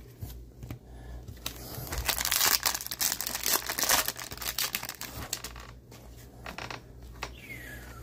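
Crinkling of thin plastic packaging handled between gloved fingers, loudest in the middle few seconds and quieter near the end.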